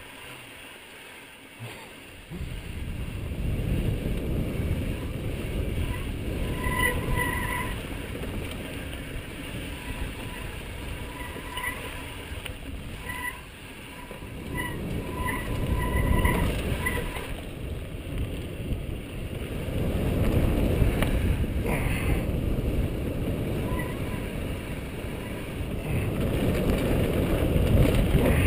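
Mountain bike riding down rocky dirt singletrack, heard from a camera on the bike: wind buffeting the microphone and tyres rumbling and rattling over dirt and stones, louder and quieter with speed. A few short squeaks come in the middle.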